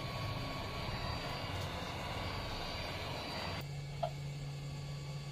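A small electric motor runs steadily with a rushing hiss and a thin high whine, then cuts off suddenly about three and a half seconds in, leaving a low electrical hum.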